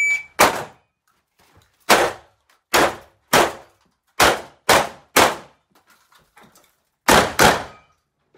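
The tail of an electronic shot timer's start beep, then nine shotgun shots from a Benelli M2 semi-automatic 12-gauge in uneven groups: one about half a second in, then quick strings of two to three with pauses between, and a last pair near the end.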